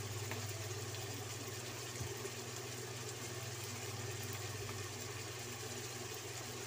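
A steady low electrical hum with a faint even pulse, from a cooker or kitchen appliance, over a soft hiss of chicken gizzards, onion and garlic sautéing in a wok.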